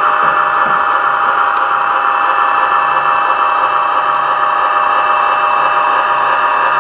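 HO scale model diesel locomotive's sound decoder playing a diesel engine idling through its small speaker: a steady hum and hiss with a faint low throb.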